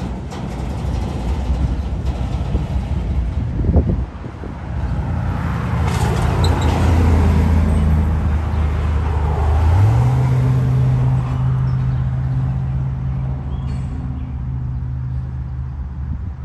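Double-stack intermodal freight cars rolling past with steady wheel-on-rail rumble. A road vehicle passes close by about six to nine seconds in, and a low engine drone steps up in pitch about ten seconds in and holds steady.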